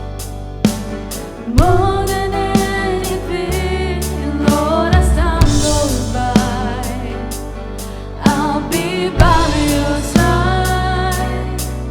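Live contemporary Christian worship music: a sung melody over a band with drum kit and bass.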